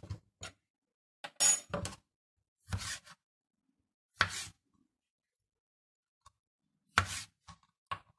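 Kitchen knife cutting cherry tomatoes on a plastic cutting board: a series of short, irregular knocks as the blade strikes the board.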